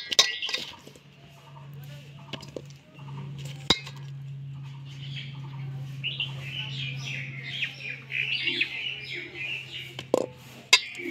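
Birds chirping in the background, busiest in the second half, over a steady low hum. A few sharp clicks come from ripe jujubes being handled in a steel bowl as their stalks are picked off.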